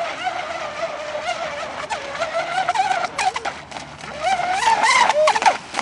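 Brushless electric motor of an RC catamaran speedboat running at speed: a high whine that wavers in pitch, then rises and grows louder about four and a half seconds in.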